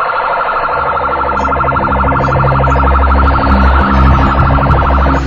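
Police car siren with a rapid warbling wail, heard loud from inside the patrol car, with a low rumble underneath.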